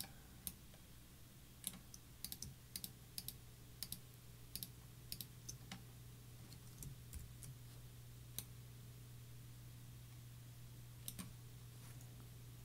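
Faint, irregular clicks of a computer keyboard and mouse, most of them in the first half and a couple more near the end, over a low steady hum.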